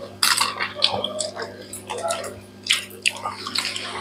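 People eating with their hands at close range: irregular wet chewing and lip smacks, with fingers squishing and mixing rice and curry on plates. A steady low hum runs underneath.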